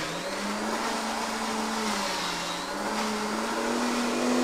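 Countertop blender (iTAZZO e-processor) running steadily, grinding a watery spice paste; the motor's pitch dips and rises slightly as the load shifts.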